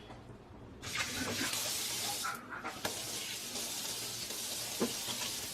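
Kitchen tap running into the sink, a steady hiss of water that starts about a second in, stops for a moment, then runs on steadily.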